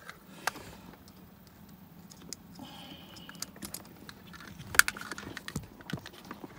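Small scattered clicks and taps from USB cables, plugs and a small power-splitter module being handled, with one sharp click almost five seconds in.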